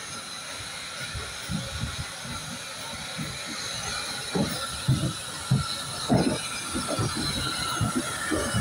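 SE&CR O1 class 0-6-0 steam locomotive moving slowly past at close range, with a steady hiss of steam and a run of low thumps, the loudest about five and six seconds in.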